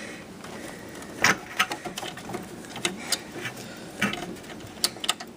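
Scattered clicks and light knocks of a cable and its connector being handled and routed inside a desktop PC case, with sharper clicks about a second in and again about four seconds in.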